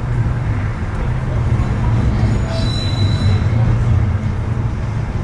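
Blackpool tram running with a steady low rumble, and a short high squeal from the wheels about halfway through.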